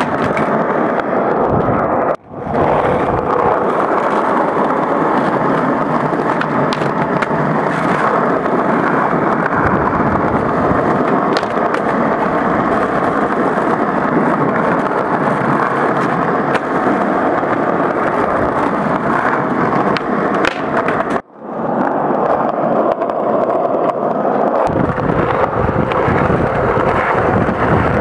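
Skateboard wheels rolling on smooth concrete: a steady, loud rumble with a few faint clicks from the board. The sound cuts out abruptly twice, about two seconds in and again past twenty seconds.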